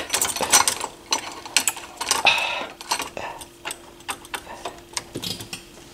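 Irregular small clicks, ticks and a brief scrape of plastic and metal parts being handled and pried inside a Harman Kardon ST7 linear tracking turntable's tonearm mechanism.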